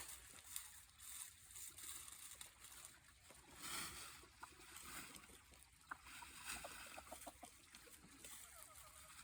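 Chickens clucking faintly, with a quick run of short clucks just past the middle.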